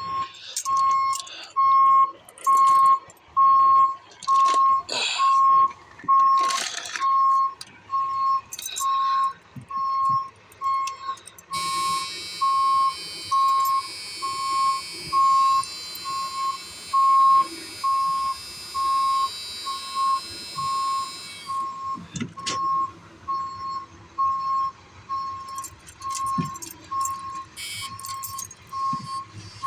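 An electronic warning beeper sounds a steady single-pitched beep about one and a half times a second, on a vehicle that won't start despite a full battery. It is joined by clicks and rattling in the first few seconds and by a hiss for about ten seconds in the middle.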